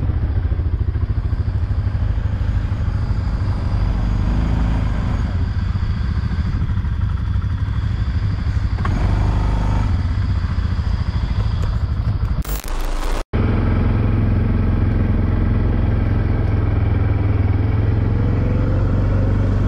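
Quad bike (ATV) engines running as the quads drive through mud. About 13 seconds in, the sound cuts abruptly to a steadier low engine drone.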